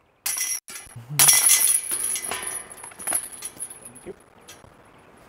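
Steel chains of a disc golf basket clashing and jingling as a putted disc strikes them and drops into the basket. The loudest clash comes about a second in and fades into a light rattle, with a sharper clink near the middle.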